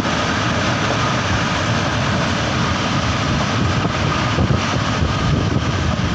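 Tornado wind roaring steadily and buffeting the microphone, a loud continuous low rumble with a rushing hiss above it.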